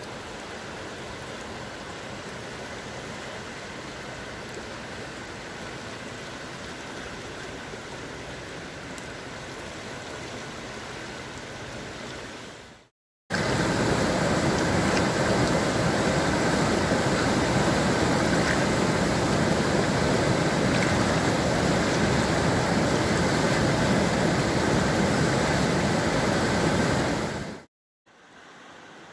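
Doubs river in flood, fast water rushing steadily. The sound breaks off for a moment about halfway through and returns much louder as churning white-water rapids, then drops away near the end.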